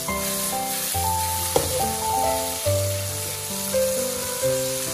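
Green beans and bean sprouts sizzling as they are stir-fried in a pan, with one sharp knock about a second and a half in, under background music of a stepping melody of held notes.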